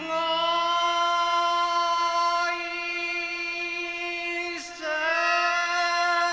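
Male Cantonese opera singer drawing out the slow, lamenting syllables 'ai soeng… ai' in long held notes over a steady accompanying tone. About four and a half seconds in, the voice breaks off with a quick downward slide, then takes up the next held note.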